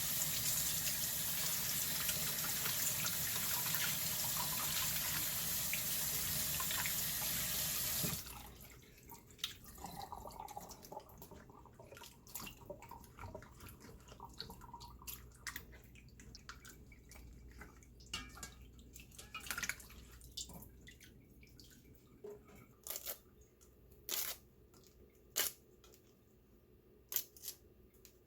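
Kitchen tap running steadily into a sink, shut off abruptly about eight seconds in. After it, quieter scattered light clicks and knocks of handling.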